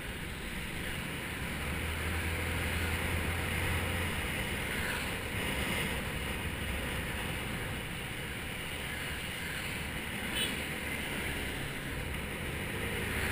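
Wind rushing over the microphone of a riding motor scooter, with the scooter's small engine running steadily underneath; a low hum swells for a couple of seconds early on.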